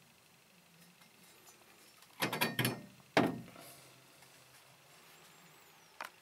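Metal knocks from a cylinder head being handled. A quick rattle of several knocks comes about two seconds in, then one heavier clunk with a short ring, and a single click near the end.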